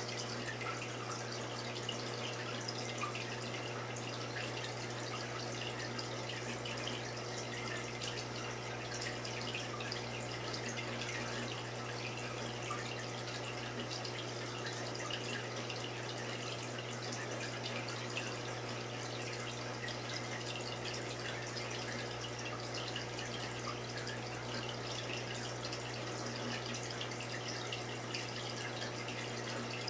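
Reef aquarium's water circulation running: steady trickling and dripping water over a constant low pump hum.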